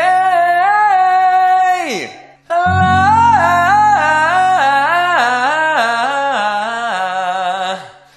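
A voice singing a 'yawning' vocal warm-up on 'aye-ah', stepping up and down a quick scale pattern and sliding down at the end of each phrase. There are two phrases; the second runs over a held low chord.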